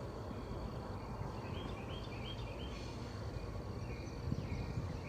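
Outdoor ambience: a songbird sings a short run of about five notes about a second and a half in, over a steady high insect drone and a low rumble.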